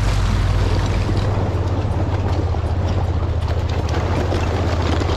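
Honda Pioneer 1000 side-by-side's parallel-twin engine running steadily under load as its tyres churn through shallow water and thin ice, with constant splashing and the crackle of ice breaking up.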